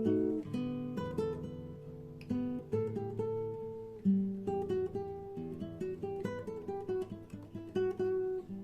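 Acoustic guitar playing an instrumental passage without singing: plucked chords and single notes, each left to ring out.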